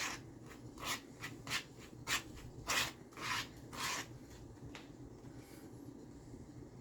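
A spoon stirring and scraping a za'atar and olive oil mixture around a bowl, in quick strokes about two a second that stop about five seconds in.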